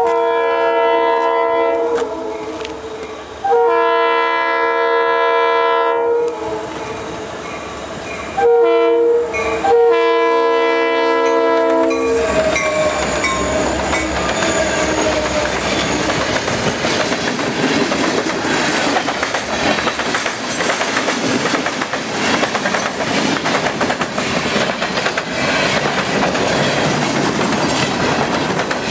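Diesel freight train's air horn sounding the grade-crossing signal: two long blasts, a short one and a long one, ending about twelve seconds in. Then the locomotives and freight cars pass close by, wheels clacking steadily over the rail joints.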